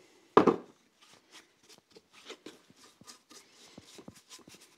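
One thump as the forged steel candle holder is set down on the steel plate. Then a bristle brush works paste wax onto the warm metal in many quick, faint scrubbing strokes.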